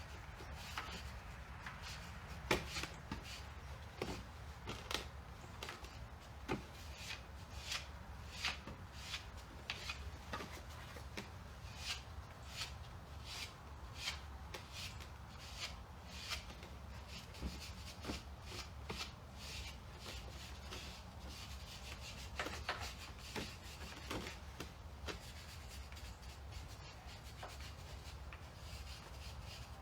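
Irregular hand rubbing and scraping strokes, about one or two a second, over a steady low hum.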